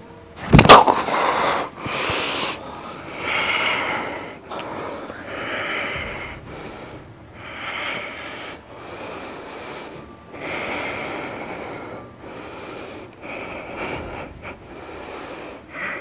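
A man breathing hard and forcefully, a dozen or so hissing, wheezy exhalations about a second apart, opening with one sharp, loud burst about half a second in.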